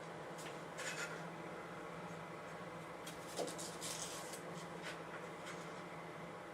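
Knife cutting celery stalks lengthwise down the center: a few scattered crisp cuts and scrapes.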